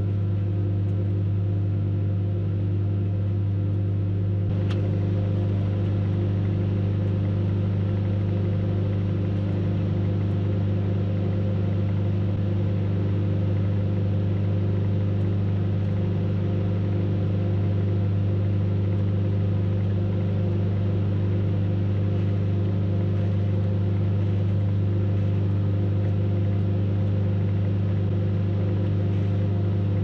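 Microwave oven running with a steady electrical hum, a portable DVD player heating inside it; one sharp click about four and a half seconds in.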